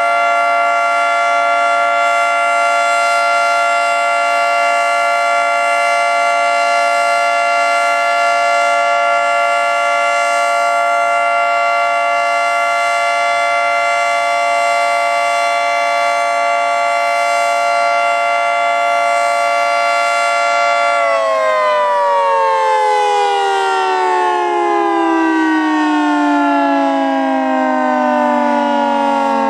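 Federal Signal 2T22 dual-tone outdoor warning siren sounding a steady two-tone chord. About 21 seconds in it begins winding down, its pitch falling steadily.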